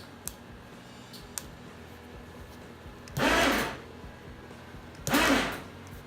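Harbor Freight Badlands 2,000-pound ATV winch motor running in two short bursts, each under a second, a couple of seconds apart, with a few faint clicks before the first. The winch has a fault in its relays: it pays out but will not spool back in.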